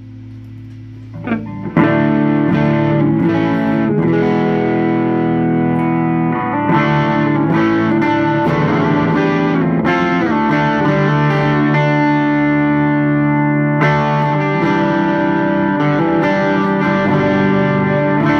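Electric guitar through a Thick Electronics Thickener overdrive pedal: a low amp hum, a short slide about a second in, then heavy overdriven riffing with held, ringing notes.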